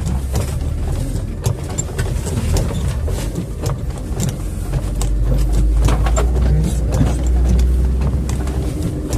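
A 4x4 off-road vehicle's engine rumbling as it crawls over a rough snowy track, heavier from about halfway in. Many sharp knocks and rattles come as the vehicle jolts over the ruts.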